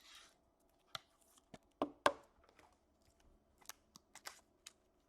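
Trading cards being handled and flipped: a short rustle at the start, then a scattering of sharp clicks and taps, loudest about two seconds in.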